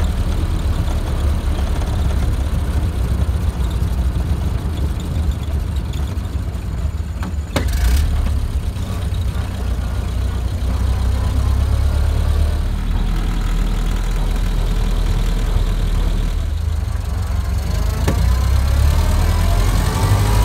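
Ford Model A four-cylinder engine running, heard from inside the cabin, with a steady low rumble. A single sharp click comes about seven and a half seconds in, and a rising whine builds near the end.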